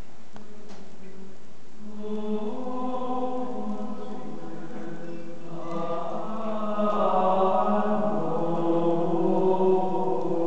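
Choir music of long held chant-like notes, starting about two seconds in and swelling fuller and louder from about six seconds in.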